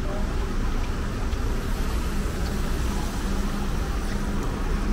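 Steady city street noise: a constant low rumble of road traffic.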